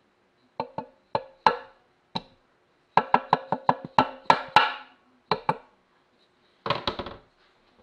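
Red plastic mallet tapping the cast inner timing chest cover of a BMW R90S airhead boxer engine to break it loose for removal. Sharp knocks with a short ring: a few single blows, a quick run of about eight in the middle, then a close flurry near the end.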